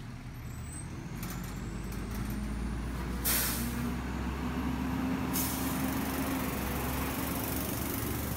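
Heavy claw truck's diesel engine running as the truck creeps into position, its hum stepping up in pitch about three seconds in. A short hiss of air from the air brakes comes about three seconds in, and a longer one starts a little past halfway.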